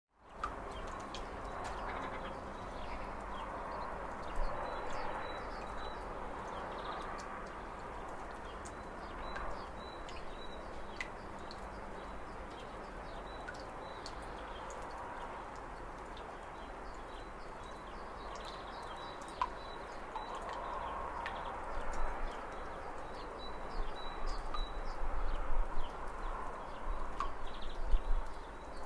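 Lakeside nature ambience: birds chirping in short repeated calls over a steady background wash. Irregular low rumbles grow louder in the last third.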